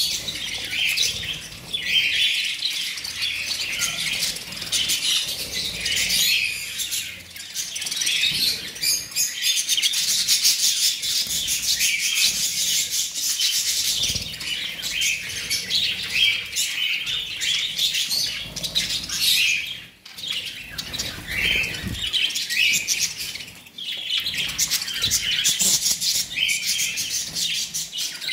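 A flock of budgerigars chattering and chirping in a continuous dense warble while feeding on fresh grass.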